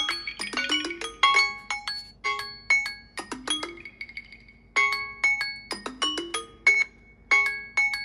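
Samsung Galaxy timer alert tone ringing from a Galaxy Z Fold 3 and Z Flip after the timer has run out: quick phrases of short, bell-like marimba notes, with a brief pause about four seconds in.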